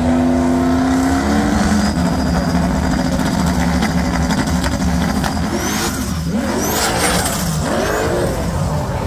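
Two drag cars' engines holding revs at the starting line, then launching about six seconds in, their engine notes climbing in pitch as they accelerate away down the strip.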